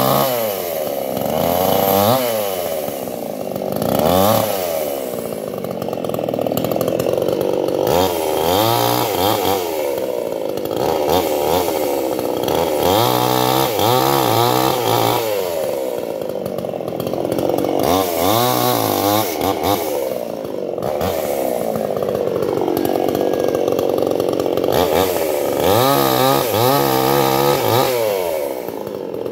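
Petrol chainsaw cutting guava wood, its engine speed rising and falling over and over, every couple of seconds, as the throttle is opened and the chain bites.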